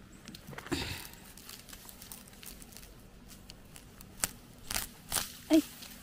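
Lemongrass clump worked by hand: dry leaves and stalks rustling and crackling as stalks are pulled, with a few sharp snaps in the last two seconds.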